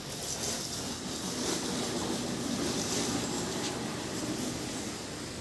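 Steady noise of a train passing, a little louder in the middle.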